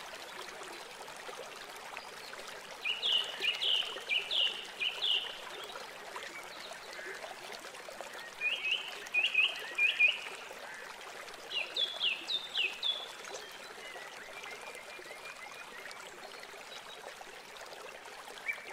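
A bird calling in three bouts of quick, high chirps, four or five notes to a bout with each note sliding down, about three, eight and twelve seconds in. Underneath is a steady faint hiss of open-air ambience.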